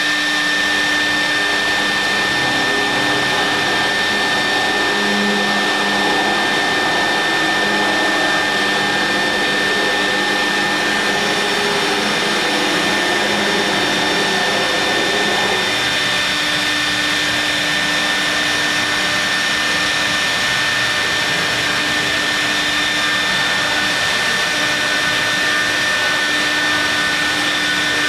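CNC milling machine with a vacuum table running while machining marble: a steady high spindle whine over a continuous rushing noise. Shifting lower tones come and go in the first half and die away a little past halfway.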